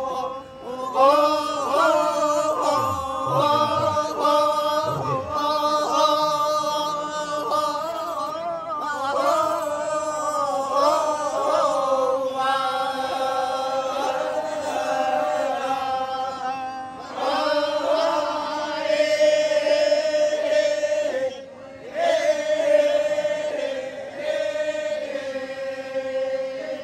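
Badong, the Torajan funeral chant: a group of voices chanting together in long, held, slowly wavering notes, with a brief pause about 21 seconds in.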